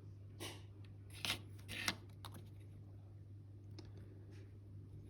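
A few short scrapes and clicks of small models and painting tools being handled on a hobby desk. The loudest come about a second in and near two seconds, over a steady low hum.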